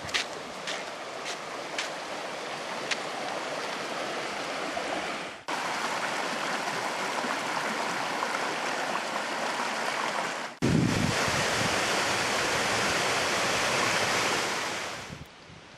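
Small creek babbling steadily, in three stretches that cut off abruptly about five and ten seconds in; the last is the loudest and fades out near the end. A few sharp clicks sound in the first few seconds.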